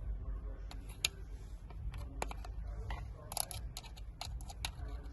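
Plastic cable tie pulled tight by hand, its ratchet teeth giving irregular sharp clicks, with a quick run of clicks about three and a half seconds in.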